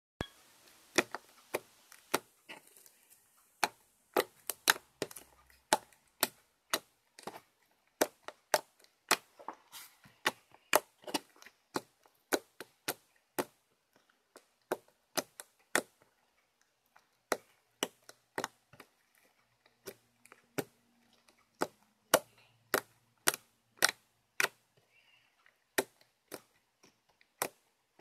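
Fluffy slime being squeezed and pressed by hand, giving sharp popping clicks as trapped air bursts, irregular, about one or two a second.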